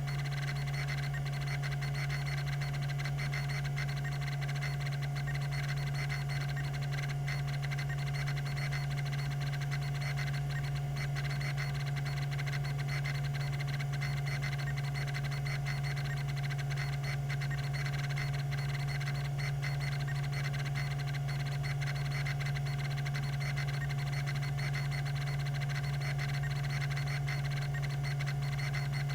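Tandon TM362 20 MB MFM hard drive running: a steady hum from the 3600 RPM spindle, with a fine, rapid ticking throughout, typical of its rack-and-pinion stepper actuator moving the heads.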